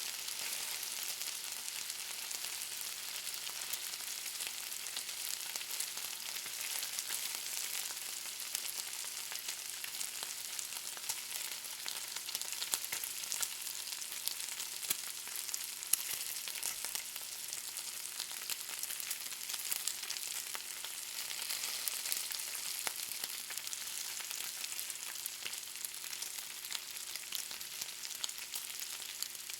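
Bacon frying in a pan: a steady high sizzle, dotted throughout with quick crackles and pops of spitting fat.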